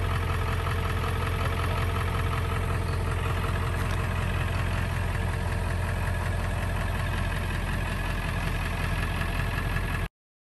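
Ford F-350 pickup's engine idling steadily; the sound cuts off abruptly near the end.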